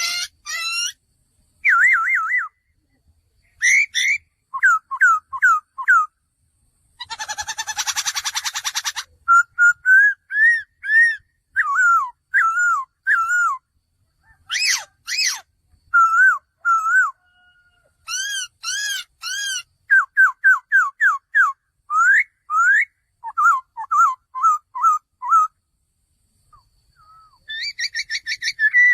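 Male laughingthrush singing: a long run of loud, clear whistled phrases made of quick up-and-down notes, broken about seven seconds in by a harsh rattling call lasting about two seconds, with a brief pause near the end.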